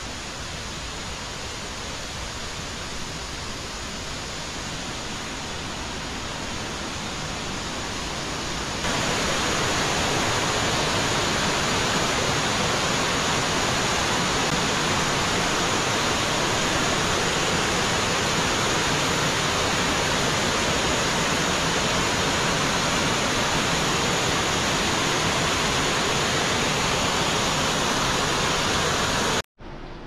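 Mountain stream rushing over mossy boulders in small cascades, a steady rush of water. It grows suddenly louder about nine seconds in and cuts off abruptly just before the end.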